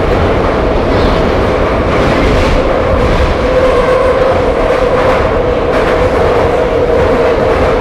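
Soviet-built 81-717-type metro car running at speed, heard from inside the carriage: a loud, steady rumble of wheels and rails with a steady hum over it, and occasional faint clacks.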